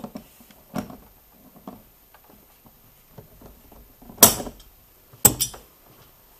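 Tool and parts handling at a car's intake hose: scattered light knocks and clicks, a short scraping rattle about four seconds in, then two sharp clicks.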